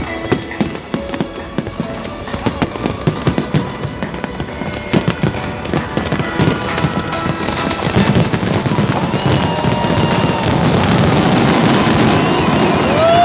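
Fireworks display: a rapid string of bangs and pops that thickens about two-thirds of the way through into dense, continuous crackling.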